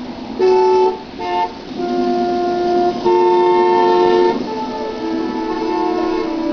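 Traffic-honking sound effect played from a CD: car horns honk twice briefly, then sound longer blasts at different pitches that overlap, over a haze of traffic noise.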